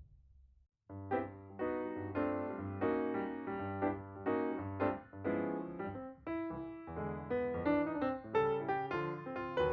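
Background music: a piano piece with struck notes and chords, starting about a second in after a brief silence.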